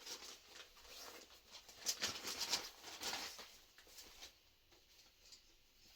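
Faint rustling and crinkling of packaging as an item is handled and pulled out, dying down after about four seconds.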